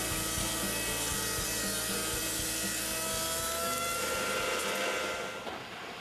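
Planer-thicknesser running and planing an ash board, a steady machine whine over a cutting hiss, fading out near the end. The twisted ash boards are being flattened, with a lot of wood taken off.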